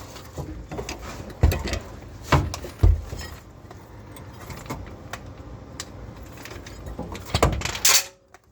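Irregular metallic clinks and knocks from metal parts and tools being handled, over a light background hiss. A louder clatter comes near the end and then cuts off suddenly.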